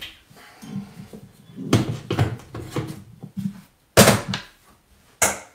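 Knocks and clatter of objects being handled and set down on a wooden sideboard, with a sharp clack about four seconds in.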